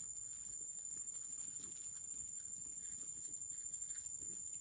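Faint scraping and small clicks of a knife cleaning soil from the base of a freshly picked wild mushroom, over a steady thin high-pitched tone.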